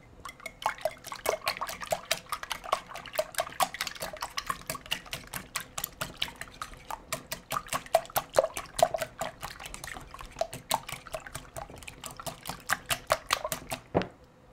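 Wire whisk beating raw eggs in a glass mixing bowl: a rapid, even clicking of the wires against the glass, several strokes a second, with the wet slosh of the beaten egg, stopping near the end.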